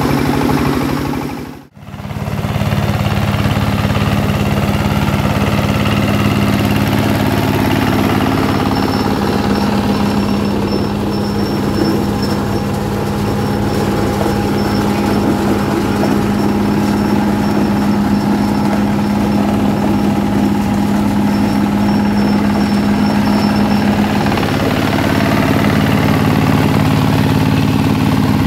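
SJ12 corn sheller running with a steady mechanical drone. The sound drops out for a moment about two seconds in.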